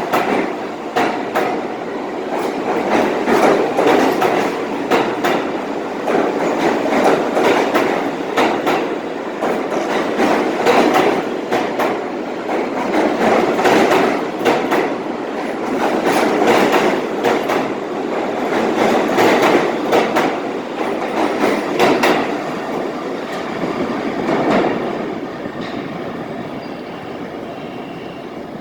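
R46 New York City subway train pulling out of the station, wheels clacking over the rail joints with many sharp clicks. The rumble swells and eases every few seconds, then fades over the last few seconds as the train leaves.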